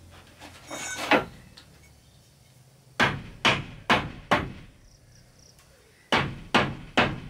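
Hammer blows on timber: one blow about a second in, then a run of four quick blows, a pause, and three more near the end.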